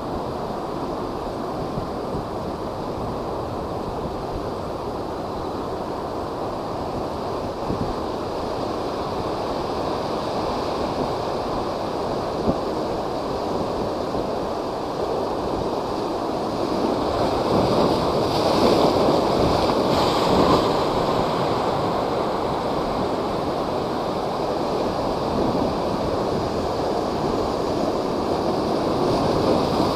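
High storm waves from a typhoon surging and breaking in a continuous roar, with wind buffeting the microphone. The surf swells louder a little past the halfway point, then again near the end.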